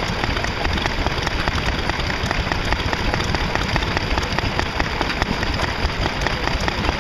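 Single-cylinder Lister stationary engine running steadily at an even pace, its firing strokes coming as a regular beat while it drives a flat belt.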